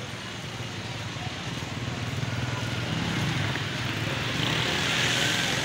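Street traffic noise: a motor vehicle's engine hum grows louder towards the middle, then a rushing hiss rises near the end.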